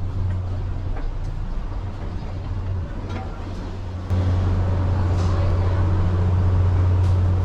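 Steady low engine drone with a hum of road or water noise, jumping abruptly louder about four seconds in.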